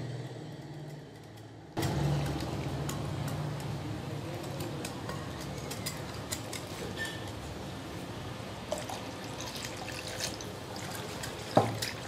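Wire whisk beating a thin yogurt and gram-flour batter in a glass bowl: steady wet sloshing with many light clicks of the whisk against the glass. It starts about two seconds in, and there is one sharper knock near the end.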